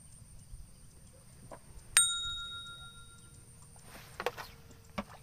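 A small bell on a fishing rod tip rings once with a sharp ding about two seconds in, ringing on for over a second: the sign of a fish taking the bait. Near the end, a few short clicks and knocks as the rod is taken in hand.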